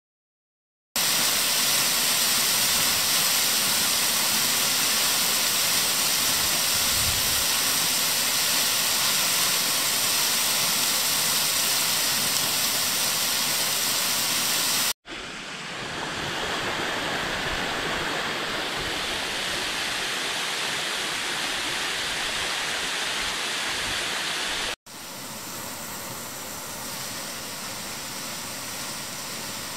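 Steady rushing noise of a waterfall cascade, starting after a second of silence. It cuts off abruptly twice, halfway through and near the end, and each time resumes as quieter steady water noise.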